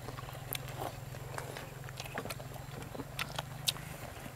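Close-up eating sounds: crusty bread being bitten and chewed, with many small crunchy clicks. A steady low hum runs underneath.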